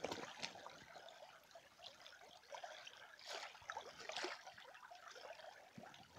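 Shallow river trickling over stones, faint, with a few soft splashes about three and four seconds in as a net on a wooden pole is pushed through the water.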